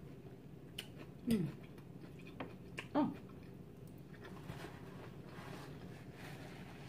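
A woman eating salad: a few light clicks of a metal fork on the plate, chewing, and two short falling 'mm' hums about a second and three seconds in.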